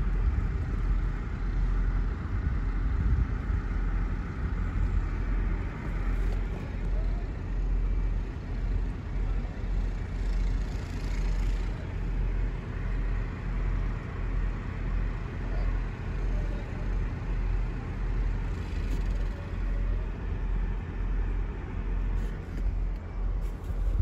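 Storm wind buffeting the microphone: a steady low rumble that swells and dips about once a second.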